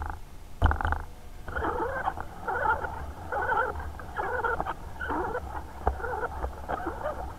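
HO-scale model train running, heard from a small camera riding on it: a steady low rumble with a rasping, chattering sound repeating a little more than once a second, and two sharp clicks within the first second.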